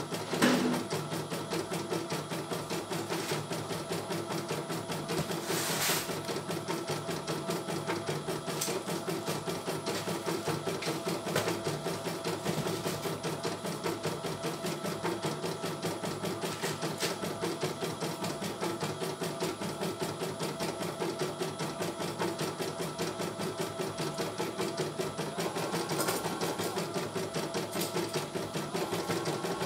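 CNY E900 computerized embroidery machine stitching out a design: a fast, even needle rhythm as the embroidery arm moves the hoop, with a few sharp clicks along the way.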